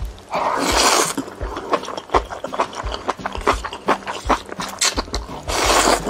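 A person slurping noodles loudly, with one long slurp about half a second in and another near the end, and wet chewing clicks in between.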